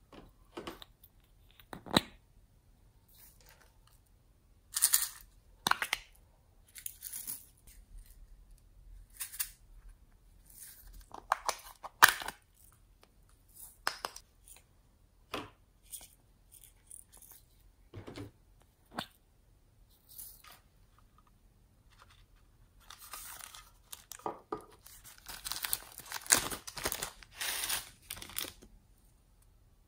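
Plastic packaging of slime toppings being handled and emptied: scattered clicks and crinkles as small containers are opened and tipped, then a longer stretch of crinkling plastic near the end as a clear bag of sprinkles is shaken out over the tray.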